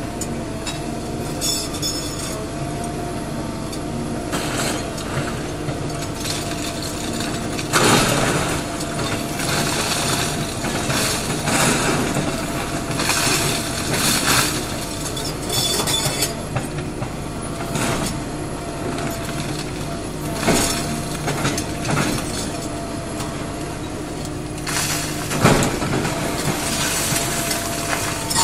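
Hydraulic excavator's diesel engine running steadily while its attachment tears into a brick wall, with repeated crashes and rattles of falling brick and rubble; the loudest crashes come about eight seconds in and again near the end.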